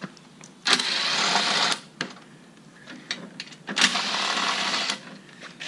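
Socket ratchet clicking rapidly in two bursts of about a second each, backing out the two rear bolts of a mower's engine cover.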